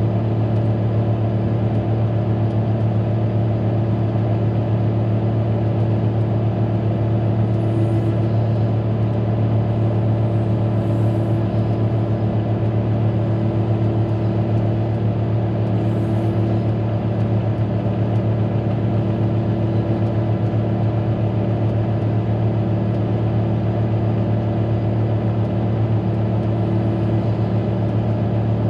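Caterpillar motor grader's diesel engine running at a steady pitch while the machine drives along, heard from inside the cab as an even, low drone.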